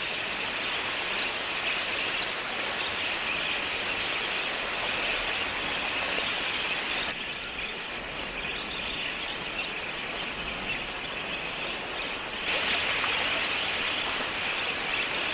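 A large flock of wild budgerigars chattering together, a dense mass of high chirps. The sound drops a little about seven seconds in and swells again about twelve seconds in.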